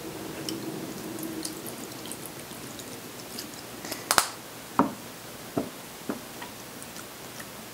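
Vinegar trickling from a bottle into a stainless-steel mixing bowl of peanut butter. About four seconds in comes a sharp click, the loudest sound, then a few separate knocks, each ringing briefly, as a wire whisk strikes the metal bowl.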